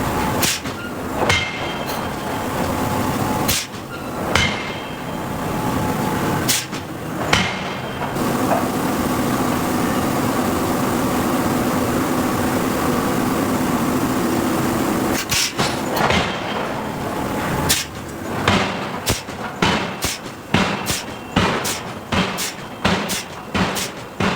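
Hydraulic forging hammer striking steel: heavy single blows about a second apart, then a stretch of steady machine noise with no blows, then a quicker run of repeated strikes near the end.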